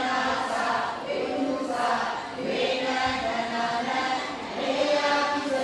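A group of Buddhist devotees chanting prayers together in unison, in steady held phrases with short breaks between them.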